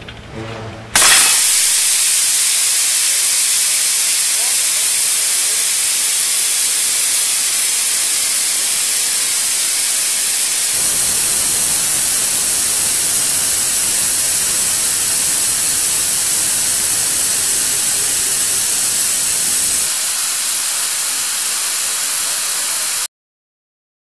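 Compressed air blasting out of a breathing-apparatus cylinder whose valve has been broken off, a loud steady hiss that starts abruptly about a second in. The excess flow valve restricts the outflow, so the cylinder empties without moving. The hiss drops slightly near the end and then cuts off.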